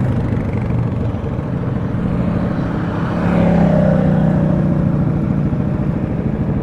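ATV engine running while riding along a dirt trail, its pitch rising a little a couple of seconds in as it speeds up, then holding steady.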